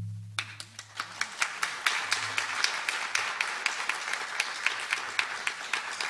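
The last low note of the song dies away in the first second, and an audience applauds, the clapping starting about half a second in and going on steadily.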